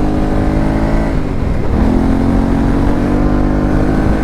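Yamaha Ténéré 700's parallel-twin engine accelerating through a Camel ADV exhaust with its dB killer removed. The revs climb, break off at a gear change about a second and a half in, then climb again from lower.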